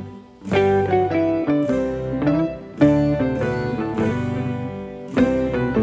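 Background music of plucked string notes in short melodic phrases, each note starting sharply and fading.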